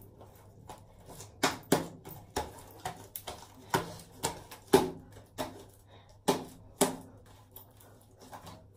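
Homemade slime being kneaded and slapped by hand: about a dozen irregular slaps, starting about a second and a half in.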